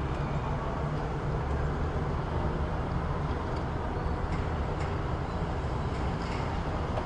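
City ambience: a steady low rumble of traffic, with a few faint light clicks partway through.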